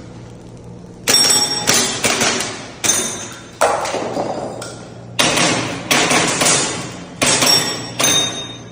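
Gas blowback airsoft pistol (Tokyo Marui G17 Gen4) firing about ten sharp shots in quick strings, some as fast pairs. Each shot has a short echoing tail with a faint metallic ring.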